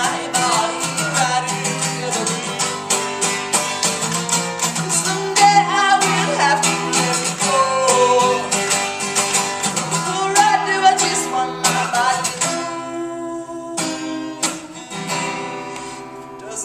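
Male voice singing over a strummed acoustic guitar. About three-quarters of the way through, the singing stops and the strumming thins to a few chords left ringing.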